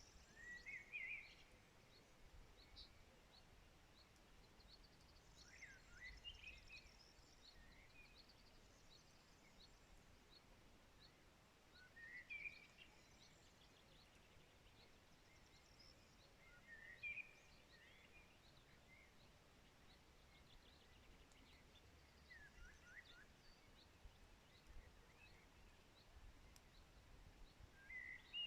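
Faint birdsong: one bird repeats a short chirping phrase about every five to six seconds, and fainter high chirps from other birds come in between, over a faint steady hiss.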